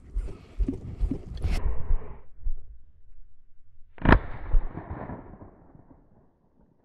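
Footsteps crunching and brushing on dry stony ground, then a single shotgun shot about four seconds in, its report echoing and fading over a couple of seconds: a shot fired at a thrush.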